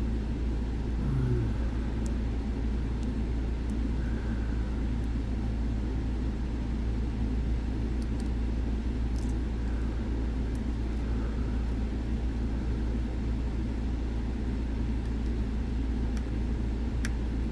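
Steady low background rumble, with faint, scattered small ticks of picks working the pins of an M&C Condor dimple lock under tension.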